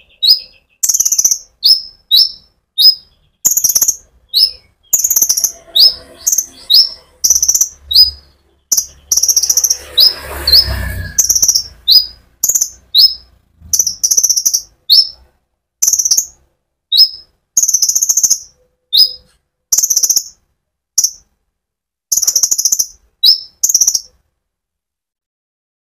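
Konin sunbird singing in a rapid, continuous run of short, sharp, high chirps, about two a second, pausing briefly near the end.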